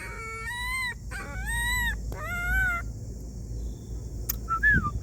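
A dog whining in three high-pitched, drawn-out cries, each rising and then falling in pitch. These are pleading whimpers. A shorter, fainter high call comes near the end.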